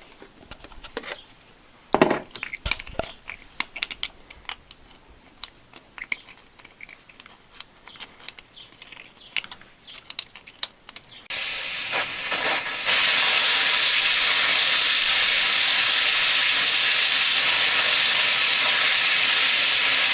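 Light clicks and taps of small hand tools on metal, one sharper knock about two seconds in. About eleven seconds in, a steady loud hiss of a gas cutting torch begins and grows louder a second or two later as the flame is turned up.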